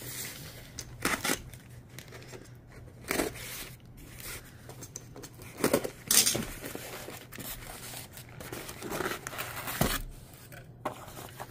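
Snap-off utility knife slicing packing tape on a cardboard box, then the cardboard flaps pulled open and a paper insert pulled out, heard as a series of separate short rips and scrapes, the loudest about six seconds in. A dull thump near the end.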